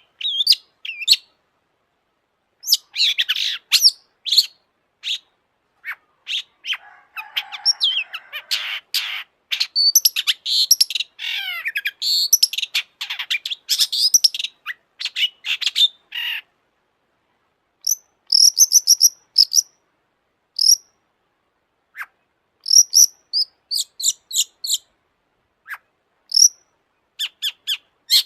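Long-tailed shrike (cendet) in full song: bursts of sharp, high, quickly varied notes, with a harsh scratchy passage and quick falling runs partway through, broken by several short pauses.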